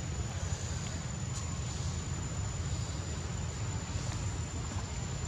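Steady insect drone holding one constant high note, over a continuous low rumble and hiss.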